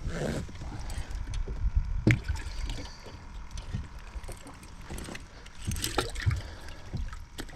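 Water sloshing and gurgling against a fishing boat, with scattered knocks and clicks of handling over a steady low rumble.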